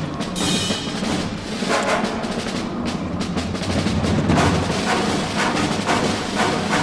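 Tense film-score music: repeated drum and percussion hits over a sustained low bass.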